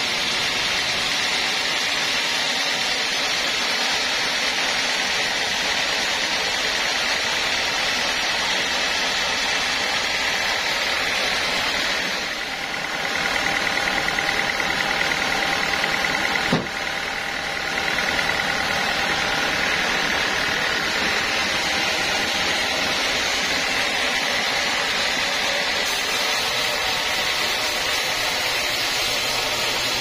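Band sawmill running, its blade cutting through a long log: a steady mechanical drone with a high whine from the blade. In the middle the sound dips and changes for a few seconds, with one sharp click near the end of that stretch.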